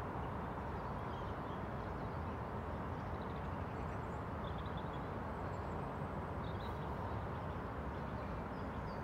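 Steady outdoor background noise, a low even hum, with a few faint high bird chirps scattered through it.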